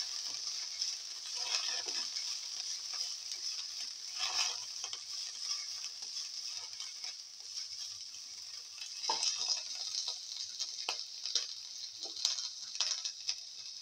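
Onion, garlic, ginger and fenugreek leaves sizzling in hot oil in a white-coated pan with a steady hiss. A spatula scrapes and stirs them across the pan in several separate strokes.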